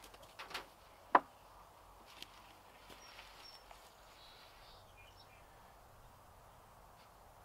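Ratchet strap being thrown over a wooden hive box: a few light clicks, then one sharp knock about a second in as the strap's end strikes the box. Faint bird chirps follow.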